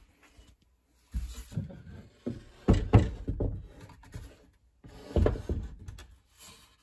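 Handling noise from a wooden shelf being held and shifted close to the microphone: dull thumps and rubbing in three bouts, about a second in, around three seconds in (the loudest), and about five seconds in.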